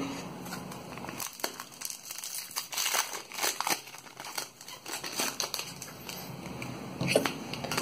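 Foil wrapper of a Pokémon TCG Cosmic Eclipse booster pack crinkling in the hands as it is opened and the cards are pulled out: a run of quick, irregular crackles and rustles.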